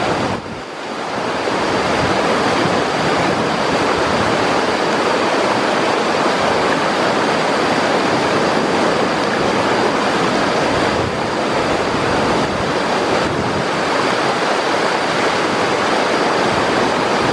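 Whitewater river rapids rushing over boulders: a loud, steady wash of churning water.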